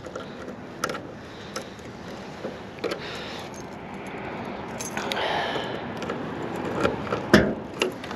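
Car keys jangling, with scattered clicks and a louder clunk a little past seven seconds in.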